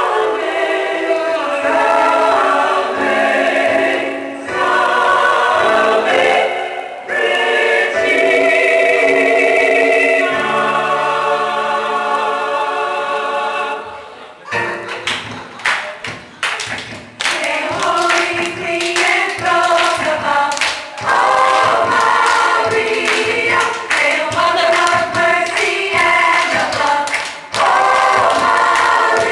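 Choir singing a slow, sustained hymn in full chords. About halfway through, a driving beat of sharp hits comes in and the singing turns upbeat over it.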